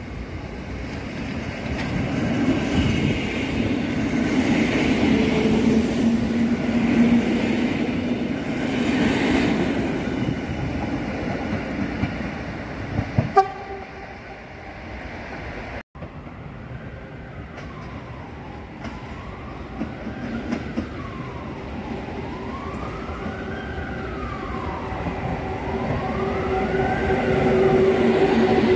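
Polish EN57 electric multiple units running through a station. One train approaches with a rumble and a hum, then after a break another comes closer with a whine that sweeps up and down in pitch several times and a hum that grows louder near the end.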